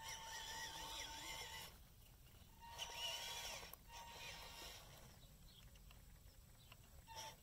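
Whine of a scale RC truck's small 180 brushed motor and geared transmission, coming in short bursts as the throttle is blipped to creep the loaded truck forward: a steady high whine with hiss, three times in the first five seconds and briefly again near the end.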